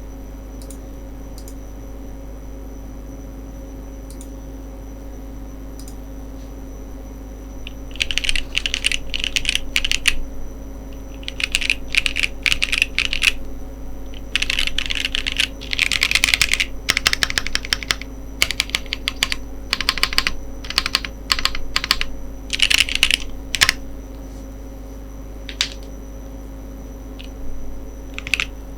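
Typing on a TGR Jane v2 ME mechanical keyboard with JWK Ginger Milky switches in an aluminum plate: fast runs of keystrokes in bursts with short pauses, starting about a third of the way in after a stretch of steady background hum, and thinning to a few scattered strokes near the end.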